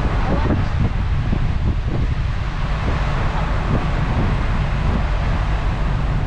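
Wind buffeting the microphone aboard a moving ferry: a steady, loud low rumble with a hiss of wind and sea noise over it.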